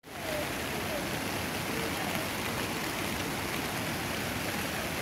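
Steady rush of river water flowing over rocks, with a few faint short chirps now and then.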